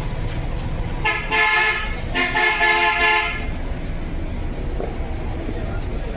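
A vehicle horn sounds twice, each honk about a second long, over the steady low rumble of a running vehicle.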